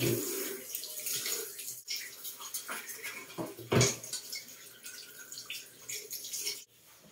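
Bathroom sink tap running water into a ceramic basin while the basin is scrubbed and rinsed by hand, with a few knocks against the sink, the loudest about four seconds in. The running water cuts off suddenly shortly before the end.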